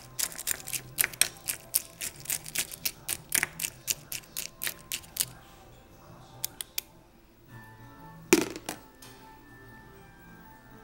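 Metal spoon clinking and scraping against a small bowl while stirring M&Ms in chocolate syrup: quick clicks of spoon and candy shells, about three or four a second, for around five seconds. Then one louder knock about eight seconds in.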